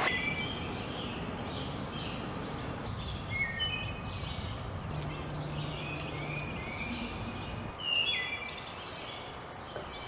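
Outdoor ambience: small songbirds chirping over and over, short calls that often slide down in pitch, over a steady background hiss.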